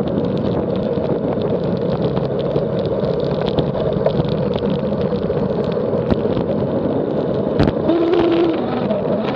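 Steady wind and road rumble on a fast descent, with a faint humming tone that comes in briefly about eight seconds in: the start of the strange noise and vibration.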